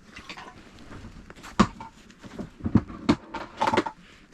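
A series of sharp knocks and thumps in a small enclosed space: one loud knock about one and a half seconds in, then several more, with a quick cluster near the end.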